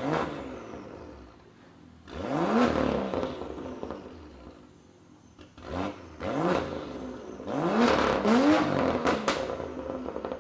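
BMW M2 F87's turbocharged 3.0-litre straight-six, through an aftermarket MufflerDesign exhaust, revved in a series of short throttle blips. Each rev rises and falls back. Near the end come a few sharp cracks from the exhaust.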